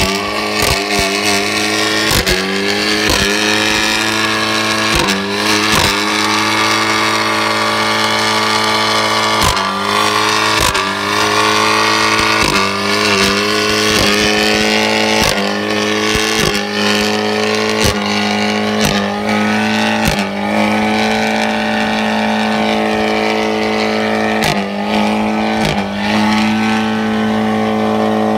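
Fiat 500 hatchback doing a stationary burnout. The engine is held at high revs on a steady note that dips briefly every few seconds, over the hiss and squeal of the spinning front tyres.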